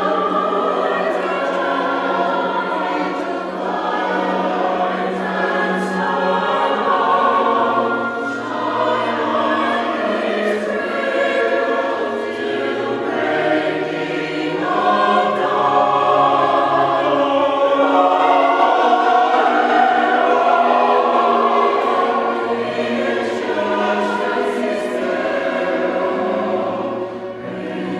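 A choir singing sacred music, several voice parts holding long notes together.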